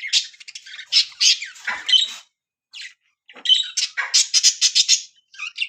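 Baby budgerigars squawking with harsh, raspy calls in bunches, then a fast run of repeated calls about four seconds in.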